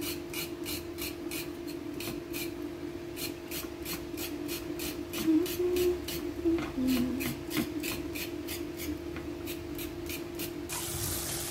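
Kitchen knife blade scraping the skin off a carrot in quick, even strokes, about three to four a second, over a steady low hum. Near the end a tap starts running.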